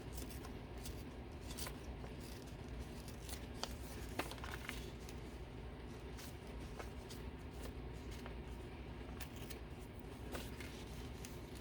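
Scissors cutting paper, with scattered small snips and paper handling over a low room hum.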